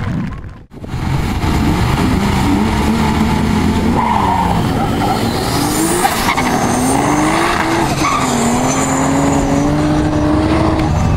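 Red BMW E30 coupe launching hard with tyre squeal. Its engine climbs in pitch and falls back at each of about three upshifts as it accelerates away down the strip.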